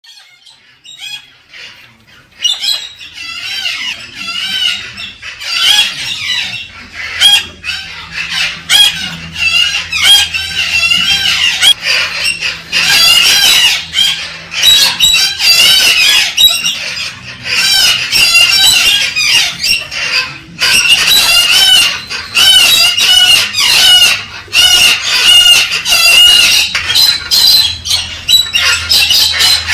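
Galah cockatoos (rose-breasted cockatoos) calling in rapid, overlapping chirps and warbling twitters, starting faint and becoming continuous about three seconds in.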